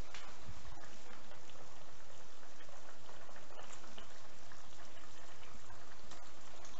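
Frying pan of potatoes and lardons simmering in its cooking liquid: a steady bubbling with small scattered pops.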